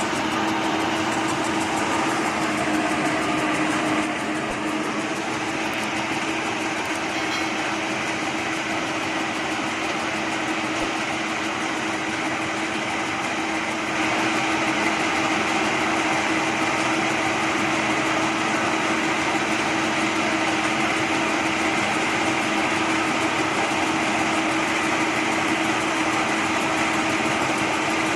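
Metal lathe running steadily, a constant hum with a strong single tone over a broad mechanical hiss, getting slightly louder about halfway through.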